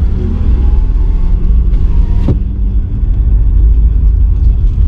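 Car driving, with a steady low rumble of road and engine noise and a single sharp knock a little over two seconds in.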